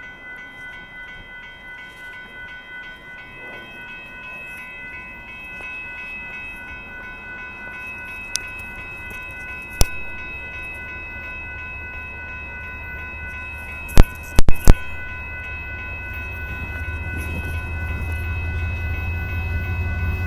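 Railroad grade-crossing warning bell ringing steadily while a train approaches; the train's low rumble grows louder over the last few seconds. A few sharp knocks sound about halfway through.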